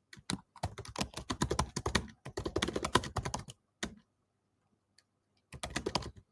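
Computer keyboard typing: a fast run of keystrokes for about three and a half seconds, a pause, then another short burst of typing near the end.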